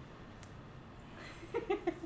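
Quiet room tone with a single faint click about half a second in, then a few soft, short syllables of voice near the end.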